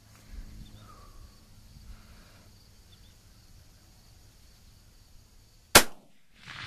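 A single .22-250 rifle shot near the end: one sharp, loud crack that stops abruptly. A fainter, longer burst of sound follows about half a second later.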